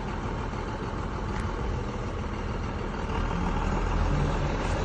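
Steady low engine rumble, like a vehicle idling, growing slightly louder about three seconds in.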